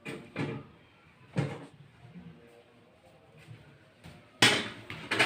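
A few separate knocks and bangs, like household objects being handled or a cupboard door; the loudest bangs come near the end.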